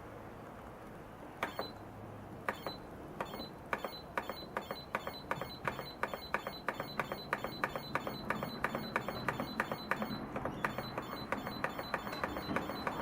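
Athletes Fitness AF430 treadmill running, with a low motor hum and a regular ticking that starts about a second and a half in and speeds up to about three ticks a second as the belt gathers speed.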